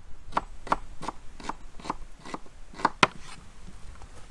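A knife chopping food, about ten quick strokes at roughly three a second.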